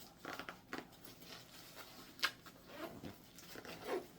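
Rustling and light clicks of gear being handled and packed, with one sharp click a little past two seconds in.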